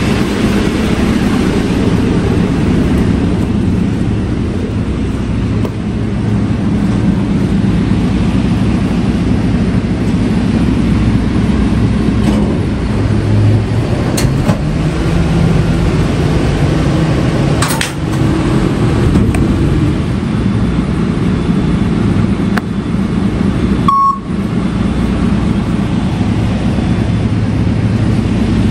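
Refuse collection truck's diesel engine running with its hydraulics switched on, a steady low hum. The note rises for a few seconds about halfway through, with a few short knocks and a brief beep about 24 seconds in.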